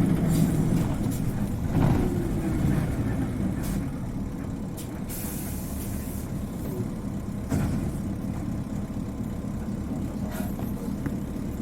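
Isuzu Cubic KC-LV380N city bus engine dropping from a working note to idle as the bus comes to a halt, heard from inside the cabin. A short hiss of compressed air about five seconds in, with a couple of brief knocks.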